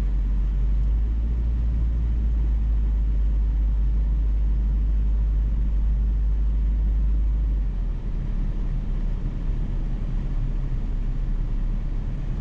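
Steady low engine and road rumble inside a moving vehicle's cabin, easing slightly about eight seconds in.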